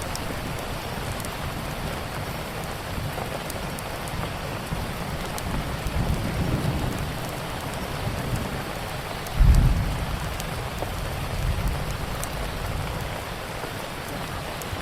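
Steady rain with the scattered sharp pops of a crackling wood fire. A short low rumble of thunder comes about nine and a half seconds in.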